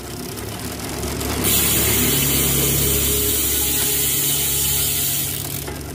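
Bicycle rear freehub ratchet clicking in a fast buzz as the wheel spins on a work stand, with the chain running through a Shimano SLX rear derailleur; it grows louder and brighter about a second and a half in and eases near the end.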